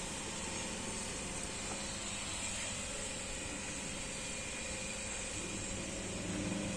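Rubber belt conveyor running steadily: an even mechanical hum under a broad hiss, with a slight swell near the end.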